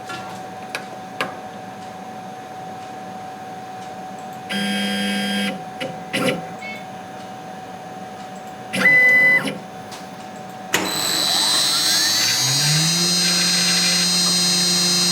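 CNC milling machine: a couple of short motor whirs and a few clicks over a steady hum, then about eleven seconds in the spindle starts, its pitch rising for a second or so before it runs steadily at speed with a high whine.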